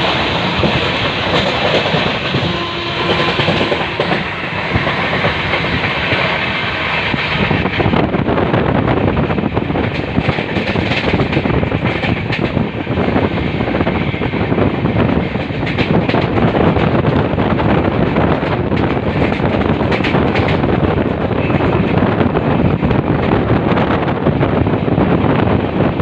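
Indian Railways express train running along the track: a loud, steady rumble of wheels on rails with occasional clicks.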